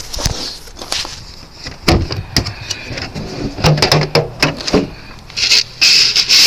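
Rummaging in a storage box of feed corn: a series of knocks and clicks from the lid and scoop, then a loud rush of dry corn kernels being scooped up near the end.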